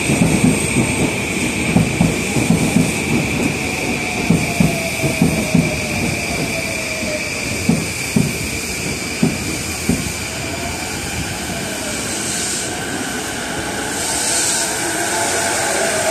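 JR East E233-1000 series electric commuter train standing at the platform with a steady hum, with irregular dull thumps in the first ten seconds. Near the end air hisses twice and the traction motors' whine starts to rise as the train pulls away.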